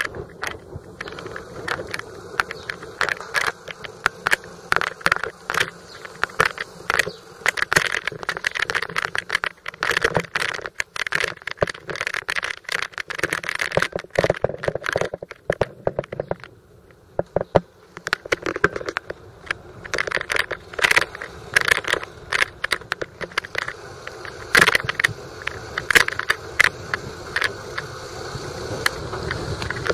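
Bicycle and its wire front basket rattling and clicking as it rolls over a rough street crusted with dried flood mud, with handling noise on the handheld microphone; the rattling eases briefly just past halfway.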